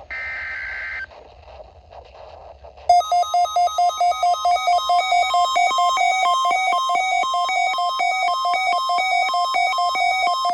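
A NOAA Weather Radio SAME header burst: about a second of warbling two-tone digital data, the last of the repeated header bursts that open a Required Weekly Test. About two seconds later a loud electronic alert of rapid buzzy beeps in a repeating pattern starts, about four or five beeps a second, and runs for over seven seconds.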